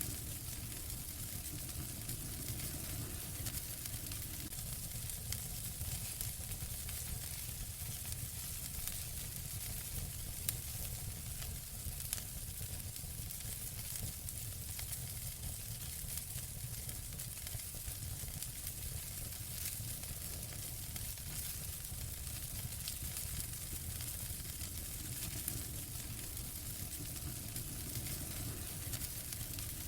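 Wood fire burning in a fireplace, crackling steadily with a low rumble and scattered sharper pops.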